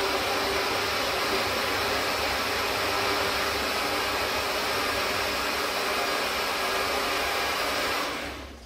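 Countertop electric blender running steadily at full speed, blending mangoes and coconut milk into a smooth mixture. Near the end it is switched off and the motor winds down.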